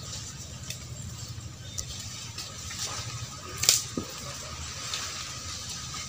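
Someone climbing barefoot on mangrove roots and thin trunks: scuffing and creaking of the wood, with one sharp knock about three and a half seconds in.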